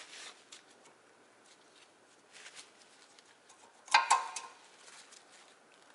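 Faint rustling of a paper towel, then about four seconds in a short metallic scrape and clink as an old brake pad is pulled out of the caliper mounting bracket and its steel clips.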